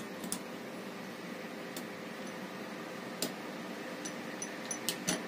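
Scattered sharp metallic clicks and taps from a ratchet torque wrench's head being handled and worked by hand, several louder ones with a few faint ticks clustered near the end, over a steady background hum.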